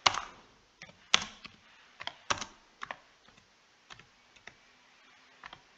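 Typing on a computer keyboard: a dozen or so separate keystrokes at a slow, uneven pace, a few of them louder than the rest.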